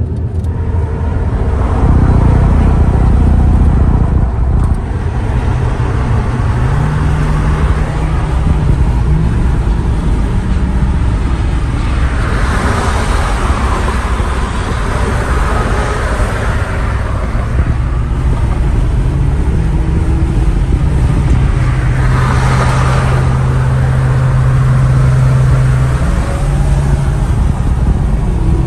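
Freeway road noise heard from inside a moving car's cabin: a steady low engine and tyre drone under a rushing hiss. The hiss swells twice, once about halfway through and again a little later, as traffic goes by close alongside.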